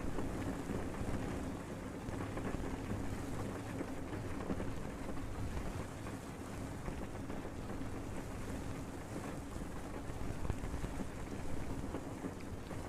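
Steady, muffled rush of layered water sounds given a fish-bowl effect, with a faint low hum underneath.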